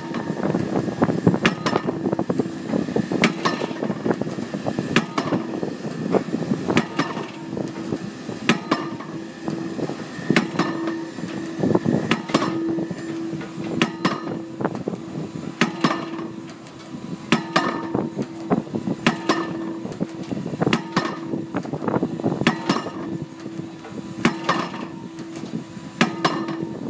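Pile driver hammer striking a pile at a steady pace, about one blow every two seconds, over the steady hum of the rig's engine.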